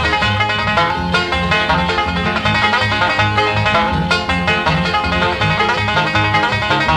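Bluegrass-style background music with a fast plucked banjo line over a steady bass beat.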